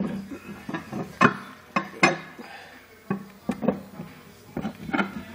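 A series of irregular knocks and clicks from a metal table post and tabletop being handled together by hand as the post is lined up with the holes.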